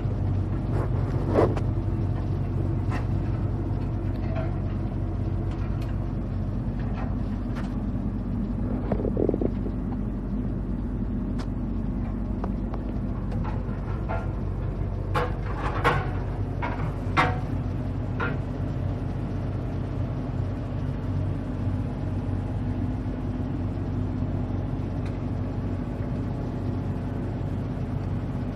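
Atlas 190 LC tracked excavator's diesel engine running steadily, with scattered sharp clanks and knocks from the machine and a brief squeal about nine seconds in.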